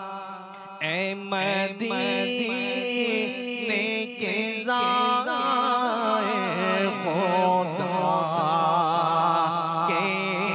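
A man singing an Urdu naat into a microphone: long drawn-out phrases with wavering, ornamented pitch. A held note fades about half a second in, and a new phrase begins just under a second in.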